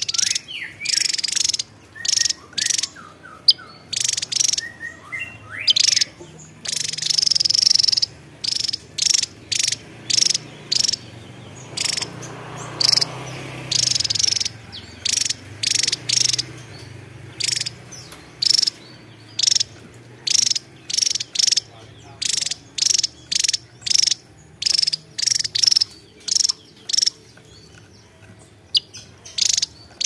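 Javan tesia singing: a long run of short, sharp, high-pitched notes repeated about once or twice a second, louder and more crowded in the first half.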